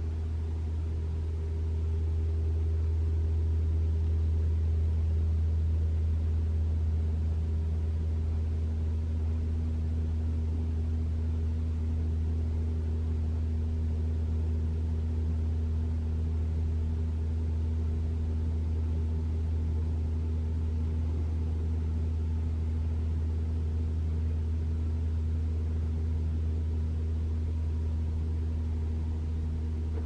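Steady hum of a 2021 Toyota RAV4 Prime's heat pump running in EV mode with the cabin heater on high, heard inside the cabin. It swells slightly about two seconds in, then holds steady. The loud horn-like valve noise the owner is testing for does not come.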